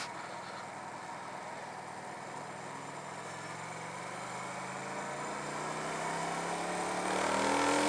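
Carbureted motorcycle engine pulling in gear as the rider accelerates, its pitch and level rising steadily through the second half, over a steady hiss of wind and road noise.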